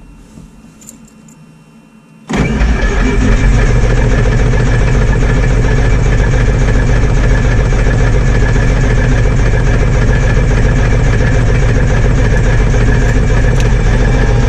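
Starter cranking the cold four-cylinder Lycoming aircraft engine. It comes in abruptly about two seconds in and keeps going steadily without the engine catching: a failed cold start.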